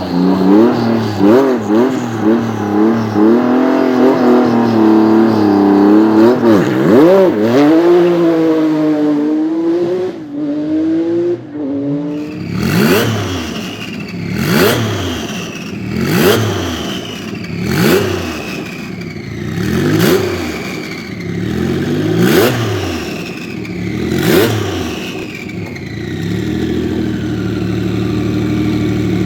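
Tuned 3.6-litre twin-turbo flat-six of a Porsche 993 Turbo (GT2 Evo) revving, its pitch rising and falling for the first dozen seconds. Then come about seven sharp throttle blips roughly two seconds apart, each followed by a burst of hiss and a falling turbo whistle. It settles to a steady idle near the end.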